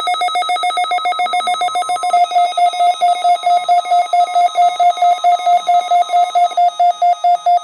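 NOAA Weather Radio receiver's alarm beeping loudly in a fast, even pulse, several beeps a second, set off by a test of the warning alarm. The broadcast's steady warning alarm tone is faint underneath.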